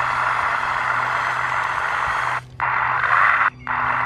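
1:16 RC model crawler dozer's electric drive motors and gearbox whirring steadily as it pushes the boat trailer, cutting out briefly twice, about two and a half and three and a half seconds in.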